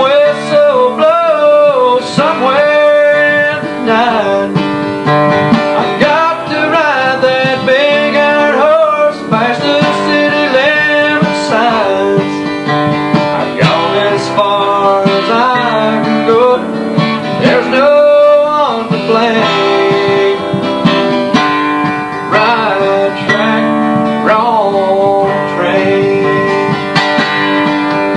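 A man singing a country song while accompanying himself on a strummed acoustic guitar.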